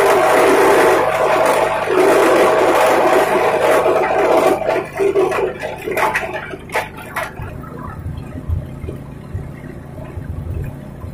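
Grass chopper machine running and shredding, a loud rushing noise with a steady hum and a few sharp clicks. About seven seconds in the loud shredding noise stops suddenly, leaving a low hum and rumble.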